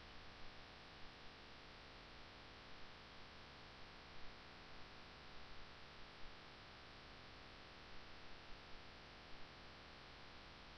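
Near silence: steady microphone hiss and low hum, with a few faint, short ticks scattered through.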